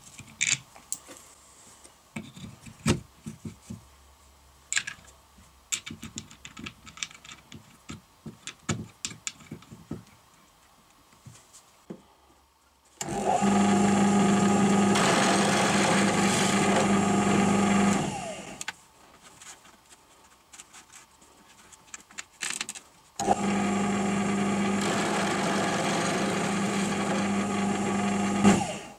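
Small clicks and knocks of wooden parts being handled and fitted into an MDF jig. A drill press then runs twice with a steady hum, about five seconds each time, the first run falling in pitch as the motor stops.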